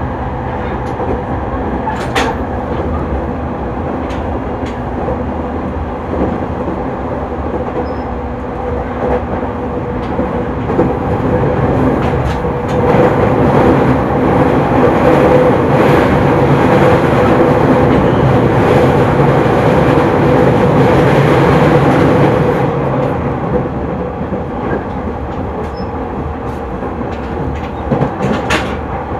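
JR 209 series electric train running along the line, heard on board: a steady rumble of wheels on rail with a held hum from the drive. The sound grows louder about a third of the way in and drops back about two-thirds through, with a few sharp clicks near the start and near the end.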